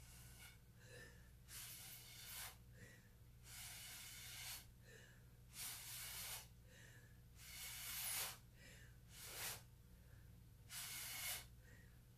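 Breath blown hard through a drinking straw onto wet acrylic pour paint: about six separate rushes of air, each up to a second long, with short breaths taken in between.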